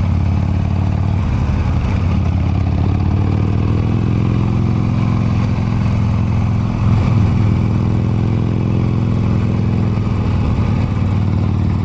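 Harley-Davidson Sportster's V-twin engine running under way through winding corners. Its note rises and falls as the throttle changes, with a brief louder surge about seven seconds in.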